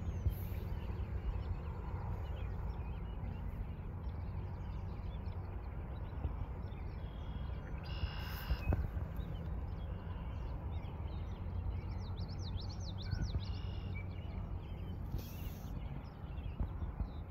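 Birds chirping now and then, with a quick run of rising and falling notes about two-thirds of the way through, over a steady low rumble.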